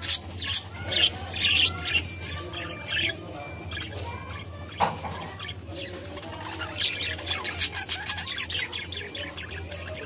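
Budgerigars chirping in short, sharp, high-pitched bursts, busiest in the first two seconds and again about seven to nine seconds in, over a steady low hum.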